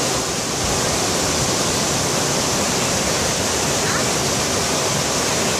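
Mountain stream rushing over rocks in small white-water cascades: a steady, even rush of water.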